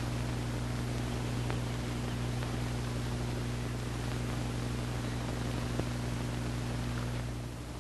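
Steady electrical hum with a constant hiss, with a few faint clicks over it.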